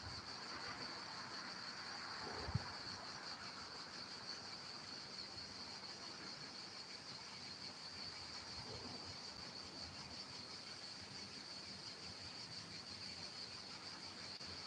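Faint, steady high-pitched drone of insects chirring in the garden, even throughout, with one soft knock about two and a half seconds in.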